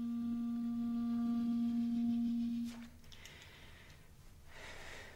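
Clarinet holding one long, steady note that stops about two and a half seconds in, sustained by the diaphragm to the end of the breath. A faint breathy noise follows near the end.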